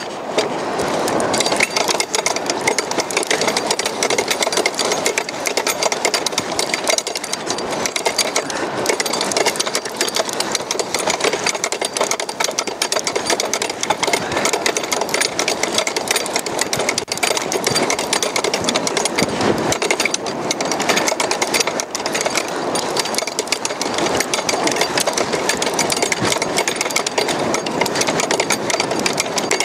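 A winch motor running steadily, reeling the longline and hooked fish in up the beach.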